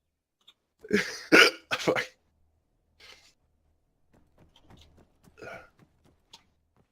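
A person coughing with hiccups mixed in: a quick cluster of three or four short, sharp bursts about a second in, then only faint small sounds.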